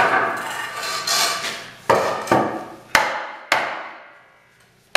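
About six hammer blows on log furniture parts, irregularly spaced, each with a short woody ring, driving log tenons into their holes to seat the joints.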